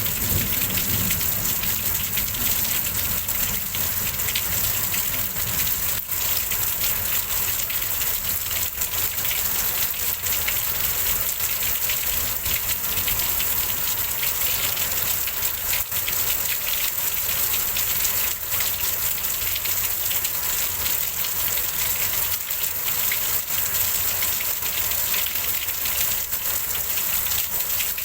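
Heavy rain pouring steadily in a windy storm, a dense even hiss. A low rumble of thunder dies away in the first second.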